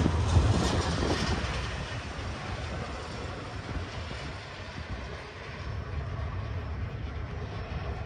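Empty double-stack well cars of a freight train rolling past on the rails, the sound fading over the first few seconds as the end of the train moves away, then a steady, fainter rumble of the departing train.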